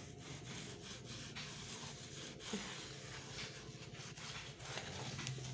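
Faint scrubbing of a kitchen sponge on the glass top of a gas stove around a burner, in quick, irregular strokes, working cleaning product into the grime.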